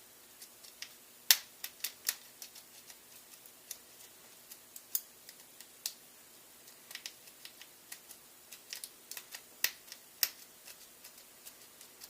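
A lock pick and tension wrench clicking against the pins and keyway of a small padlock-style gun lock while it is being picked. Irregular sharp metallic ticks, with a few louder clicks.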